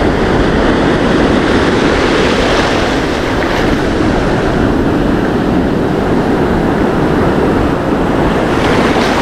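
Sea surf washing in over wet sand and around the feet of someone standing in the shallows: a steady, loud rush of foaming water.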